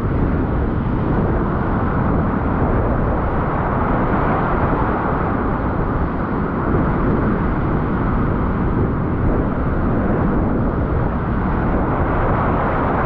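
Breaking surf and foaming whitewater rushing around the camera at water level, with wind buffeting the microphone: a steady, loud rush without let-up.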